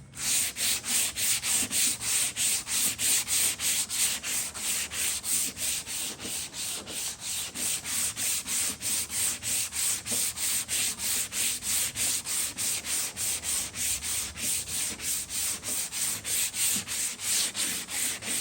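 Hand block-sanding of body filler and putty on a truck tailgate: steady back-and-forth strokes of sandpaper on a sanding block, about three strokes a second, each stroke a loud scratchy hiss.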